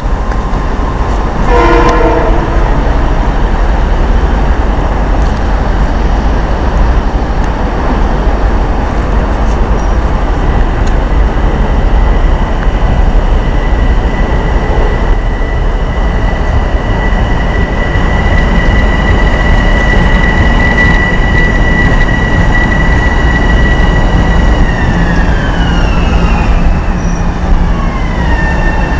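M7A electric multiple unit train running loudly, with a steady high-pitched whine that glides down in pitch near the end: the weird sound these cars make. A brief horn note sounds about two seconds in.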